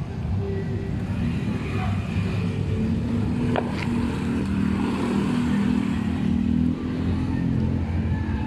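Honda ADV scooter's engine running as it is ridden slowly past close by, loudest midway and dropping away near the end. About three and a half seconds in there is one brief sharp click.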